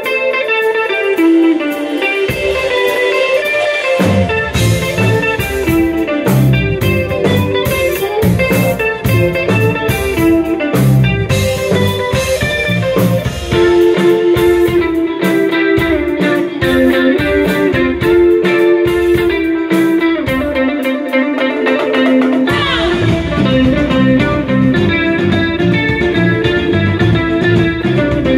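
Live instrumental band music: an electric guitar plays the lead melody over drums and bass. The guitar plays nearly alone for the first couple of seconds before the rhythm section comes in, and the low end drops out briefly about twenty seconds in before the full band returns.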